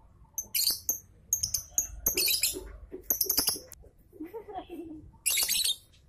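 Lovebird chirping: shrill, high-pitched calls in about five short bursts, with a few small clicks between them.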